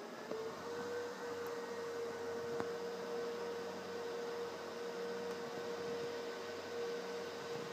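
Dell PowerEdge 2850 server's cooling fans running with a steady whine during boot. The pitch steps up a little shortly after the start and then holds. There is a single faint click about two and a half seconds in.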